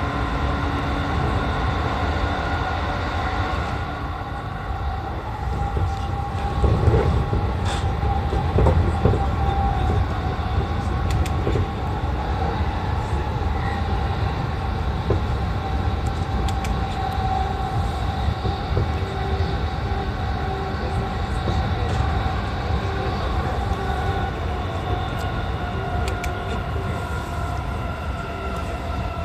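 E235-1000 series electric train running, heard from inside the front car: a steady low rumble of wheels on rail under several level whining tones, with occasional sharp clicks, a cluster of them about seven to nine seconds in.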